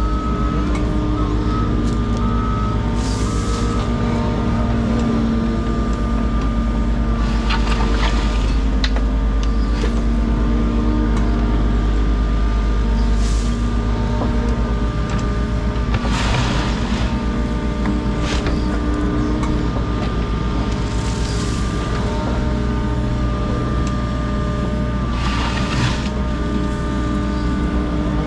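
Diesel engine of compact earthmoving equipment running steadily under work, with whining tones that come and go and several short bursts of hiss.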